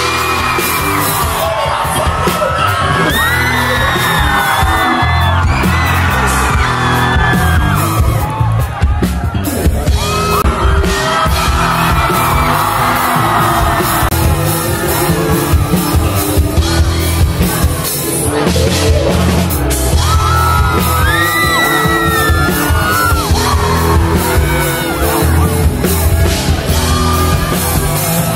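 Live rock band playing loudly: a lead singer's vocals over electric guitar and a drum kit.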